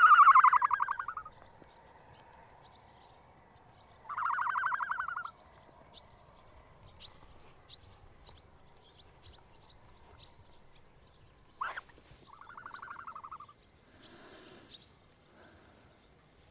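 Bleating livestock: three quavering bleats, the first at the start and the loudest, another about four seconds in, and a softer one near twelve seconds. A sharp click comes just before the last bleat, and a faint steady high hum runs underneath.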